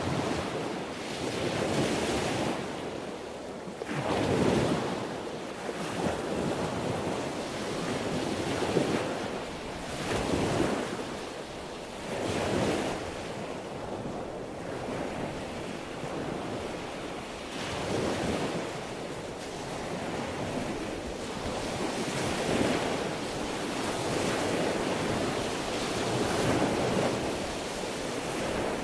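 Sea waves breaking and washing in, a steady rush of surf that swells and falls back every two to four seconds.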